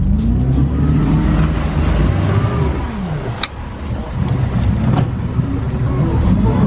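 Motorboat engine running, its propeller churning the water at the stern; the engine note rises and falls. A sharp click comes about three and a half seconds in.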